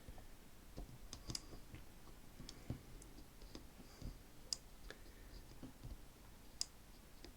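Number wheels of a Squire Snap Lock 210 combination lock being turned under slight pressure on the barrel, giving faint, irregular small clicks as each wheel steps from number to number. It is the sound of the lock being decoded without its combination.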